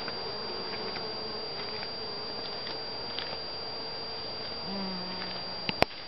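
Honeybees buzzing while foraging on daisy flowers, a steady hum that drifts slightly lower, with a louder, deeper buzz from a bee passing close for about half a second near the five-second mark. A sharp click comes near the end.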